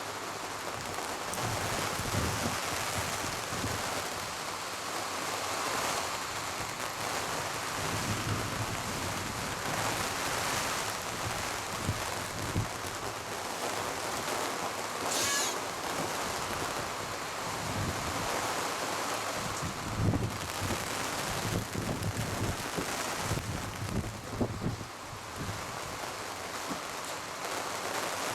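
Gusty wind and rain, the wind rising and falling and buffeting the microphone.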